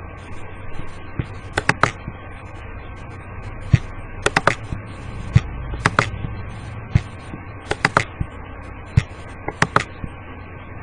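Sharp clicks from handling a computer, in quick clusters of two or three every second or two, over a steady low electrical hum and hiss.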